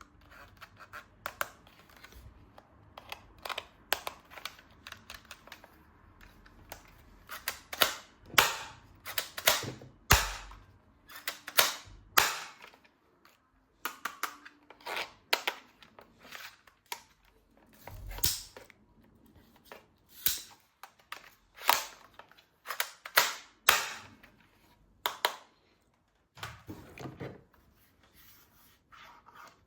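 Toy guns being handled: irregular sharp plastic clicks and snaps, coming in clusters.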